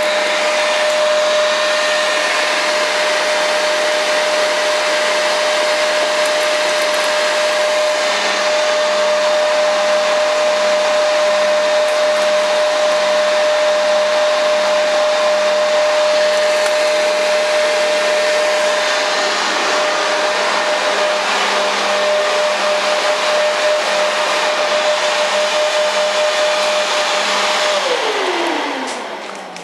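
Toro electric leaf blower running steadily with a high whine, blowing air down a homemade air tunnel. Near the end it is switched off and winds down, its whine falling as the noise dies away.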